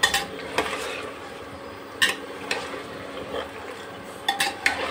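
A spoon stirring chicken and ginger-garlic paste in a pot of hot oil, with a few sharp clinks and scrapes against the pot: one near the start, one about two seconds in, and a quick cluster near the end.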